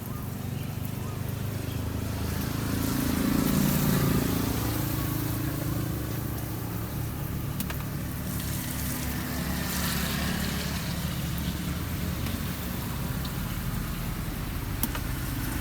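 Road traffic: motor vehicles running past, one growing louder and passing about three to four seconds in.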